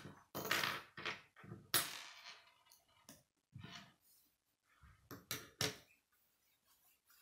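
Plastic K'nex rods and connectors clicking and snapping together in the hands, a series of sharp separate clicks and knocks with short pauses between.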